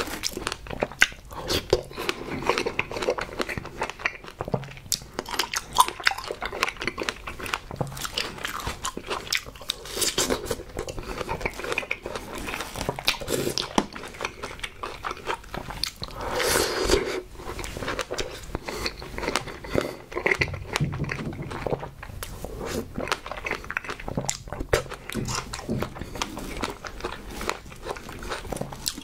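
Close-up eating sounds of fresh strawberries with whipped cream being bitten and chewed: juicy crunches and wet mouth smacks in an irregular stream, with one longer, louder stretch about halfway through.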